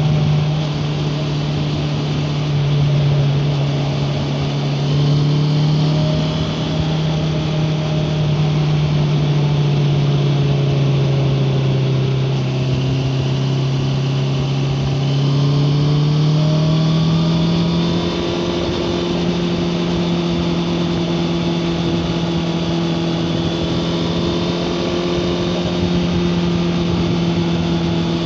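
Honda CBR650R's inline-four engine running at steady cruising revs, heard from a recorder in the rider's backpack over a layer of wind and road noise. The engine note sags a little, then rises about two-thirds of the way through and holds at a slightly higher steady pitch.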